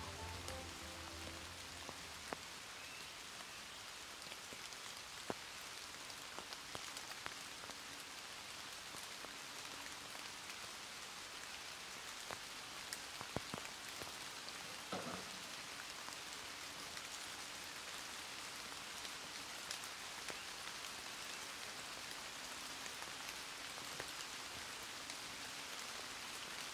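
Steady faint hiss with scattered faint ticks and taps, and a brief soft knock about fifteen seconds in.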